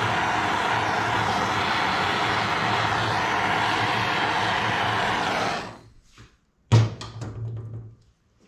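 Handheld torch flame hissing steadily as it heats a CRP billet turbo compressor wheel so the wheel expands for fitting on the shaft. The hiss cuts off a little after five seconds. About a second later comes a single sharp knock, followed by a brief clatter.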